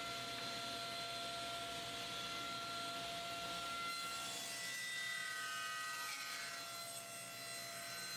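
Table saw running as it cuts a cherry board, with a steady whine. About halfway through, the whine falls in pitch as the blade spins down.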